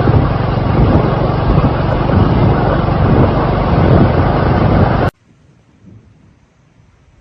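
Storm wind buffeting the microphone, a loud, steady rushing noise that cuts off abruptly about five seconds in.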